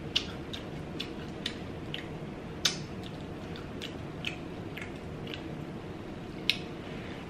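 Close-miked mouth sounds of someone chewing fried fish: sharp wet clicks and smacks about once a second, the loudest near the middle and near the end, over a steady low hiss.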